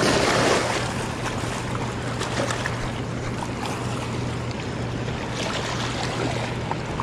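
Steady rush of turbulent water in the dam's outflow, with a constant low hum underneath; briefly louder at the start.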